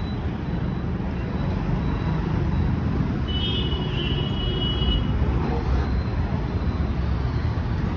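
Steady street traffic noise, mostly a low rumble, with a brief high-pitched tone a little past three seconds in.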